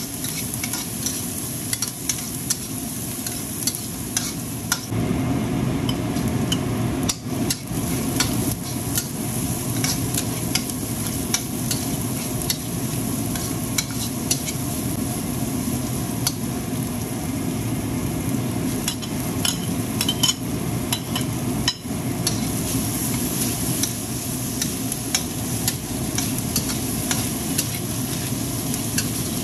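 Chopped onion, garlic and vegetables sizzling in oil in a stainless steel wok, with a metal spatula scraping and clicking against the pan in quick, irregular strokes as they are stir-fried.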